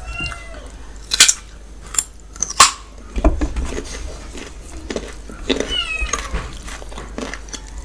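Close-miked eating: wet lip smacks and chewing while fingers squish rice into the duck masala gravy, with three sharp wet clicks between about one and three seconds in. Twice, near the start and again past the middle, a short high-pitched wavering call sounds.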